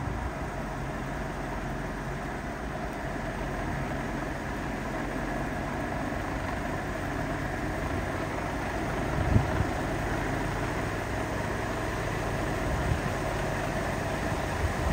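Heavily modified Tucker Sno-Cat with a GM 8.1-liter Vortec V8 running steadily as it climbs a hill on its tracks. There are two brief low thumps, the sharper one a little past halfway and a smaller one near the end.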